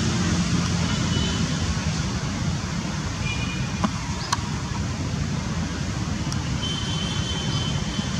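Steady rumble of road traffic, with a few brief, faint high-pitched chirps and a couple of light clicks.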